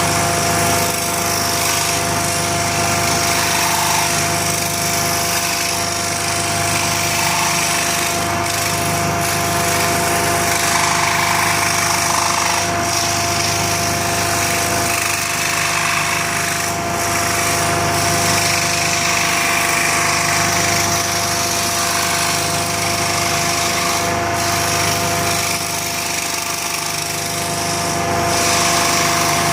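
Woodworking power tool running steadily, its motor giving a constant whine over a buzzing, vibrating noise.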